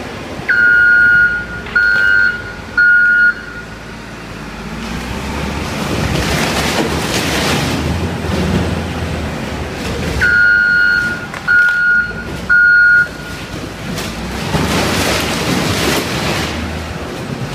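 Caterpillar wheel loader running under load, its reversing alarm giving three loud beeps about half a second in and three more about ten seconds in. Between the beep groups the machine noise swells twice into louder, rougher stretches.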